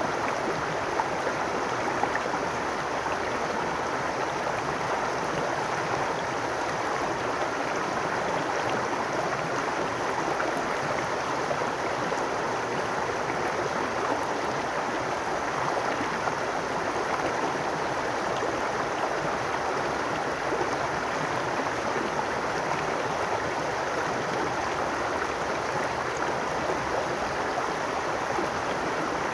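Babbling brook: water running steadily over stones.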